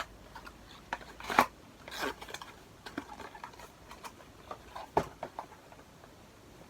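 Cosmetic packaging and a small bottle being handled: scattered clicks, taps and light rustles, the sharpest about a second and a half in and another near five seconds.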